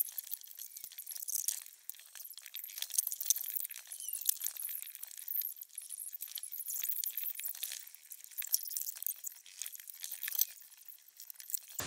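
Rapid light clinking and clattering of household things being handled, with empty drink cans knocking together in a bowl. It sounds thin, with nothing low in it.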